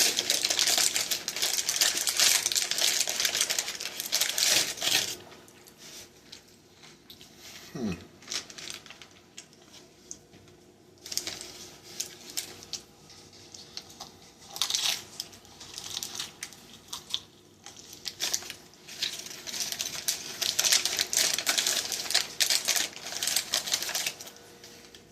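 Close-up chewing of crisp fried crab rangoon, the wonton shell crunching and crackling densely for about five seconds, then in shorter, sparser spells.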